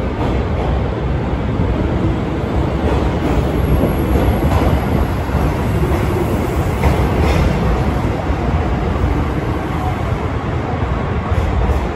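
Passenger train rolling along a station platform: a steady rumble of wheels on rail.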